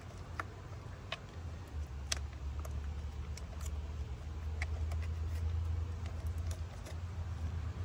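Cables and plastic connectors being handled and routed along an e-bike frame: scattered small clicks and rustles, over a low steady rumble.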